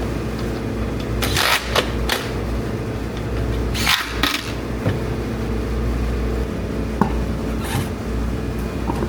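A steady low mechanical hum, with several short hissing or scraping noises and one sharp click about seven seconds in.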